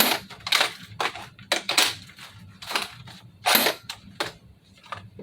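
A string of sharp plastic clicks and clacks, about eight spaced unevenly, the loudest about half a second, two seconds and three and a half seconds in, from an unloaded FN P90 airsoft replica being dry-fired and handled.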